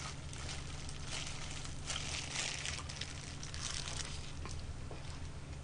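Disposable plastic glove crinkling as a hand squeezes a rice ball, then biting and chewing. A low steady hum runs underneath.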